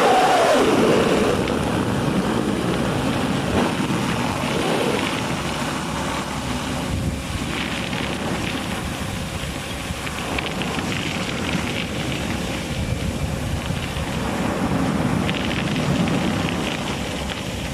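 Vacuum excavator running, a steady loud rushing noise of its blower and suction, with a falling tone right at the start.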